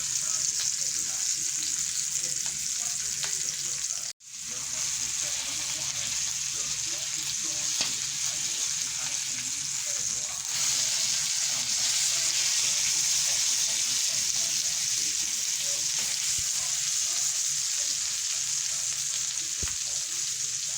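Butter sizzling and spitting in a hot frying pan, a steady hiss. It cuts out for a moment about four seconds in and gets louder about halfway through.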